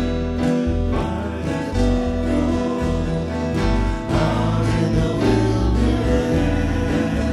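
Live worship band playing a song: strummed acoustic guitars, electric bass and keyboard, with women singing into microphones.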